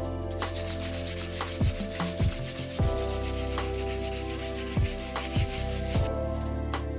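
Sandpaper rubbed quickly back and forth along a wooden hammer handle, a fast, even rasping that stops abruptly about six seconds in. Background music with held chords and a few deep bass beats runs underneath.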